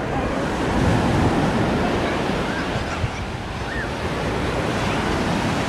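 Small surf waves washing up onto a sandy beach in a steady wash, with wind on the microphone.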